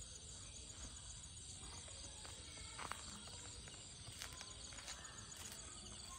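Faint steady chirring of crickets and other insects, with a few soft knocks or taps scattered through.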